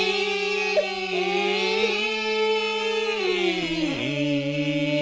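A family of adults and children singing together, holding one long drawn-out note, then stepping down in pitch about four seconds in.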